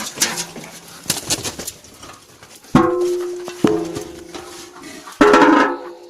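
A metal feed pan or dish knocked and set down, ringing twice with a steady tone that fades each time, then a clatter near the end, with birds around.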